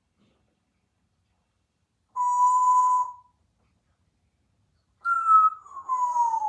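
Congo African grey parrot whistling: one short steady note about two seconds in, then a longer note that slides downward in pitch near the end.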